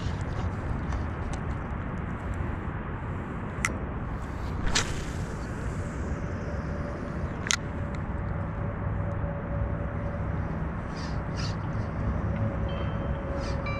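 A spinning rod is cast with a few sharp clicks and a swish about five seconds in. A faint steady whine follows as the spinning reel is cranked in, all over a low steady rumble.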